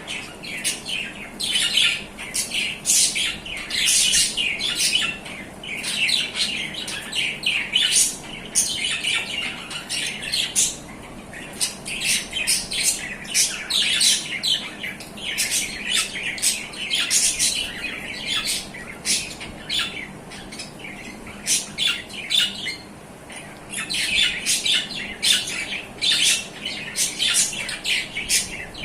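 A pair of adult budgerigars chattering and squawking in rapid, continuous short calls, with a brief lull about three-quarters of the way through.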